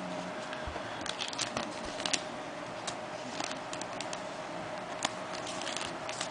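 Trading cards being handled and flipped by hand, a scatter of light clicks and short rustles, over a steady faint hum.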